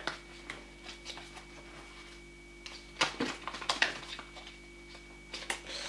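Soft clicks and rustles of hands handling a small eyeshadow palette's packaging, loudest in a short flurry about three seconds in and again near the end, over a faint steady hum.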